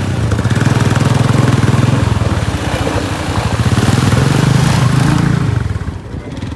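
Motorcycle engine running under load, its note rising and easing twice, then dropping back near the end.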